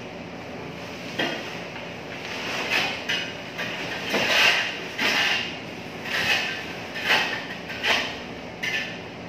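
Flat shovel scraping across a bare concrete floor and scooping broken tile and concrete rubble, in a run of short scrapes and clatters, one or two a second.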